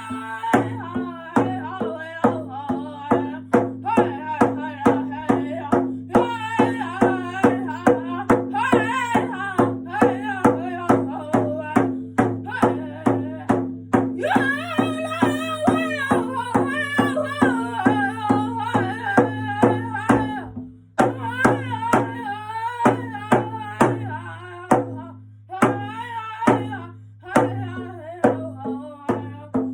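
Native drum song: a voice singing over a steady drumbeat of about two strikes a second, with a brief break in the drumming and singing about two-thirds of the way through.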